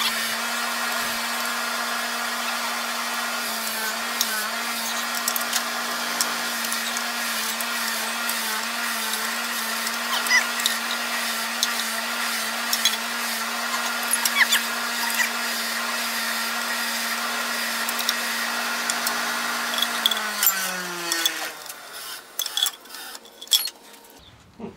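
Electric wire wheel running steadily while the rusty drum-brake shoe adjuster is scrubbed against it, with a scratchy crackle of wire on metal. About twenty seconds in it is switched off, and its hum falls in pitch as it spins down. A few light metal clinks of a wrench on the wheel cylinder bolts follow near the end.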